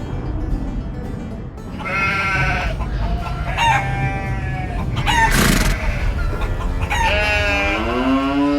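A rooster crowing three times, the last crow ending in a long falling note, with a short harsh burst between the second and third.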